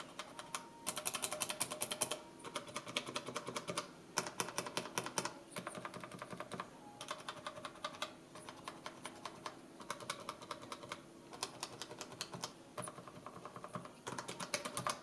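Cherry MX mechanical key switches mounted in a plastic housing being pressed repeatedly, one switch after another. The result is bursts of rapid clicking, each a second or two long, with short pauses between the switches.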